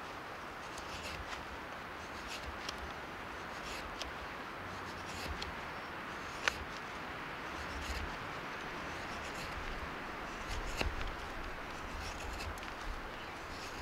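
A knife shaving and scraping a small twig, with irregular light scrapes and a few sharp clicks over a steady background hiss, as wet bark is stripped off and feathers are carved for fire tinder.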